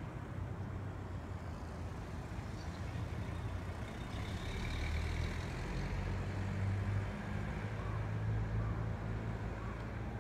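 Low engine rumble of a truck, growing louder about halfway through and easing off near the end.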